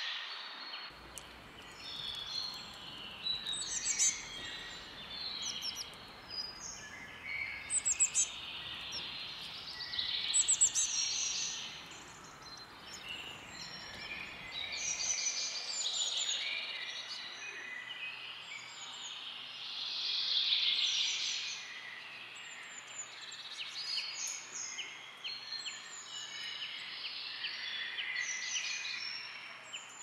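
Small birds chirping and singing: short high calls and trills coming one after another, often overlapping, with a faint low rumble underneath that stops about halfway through.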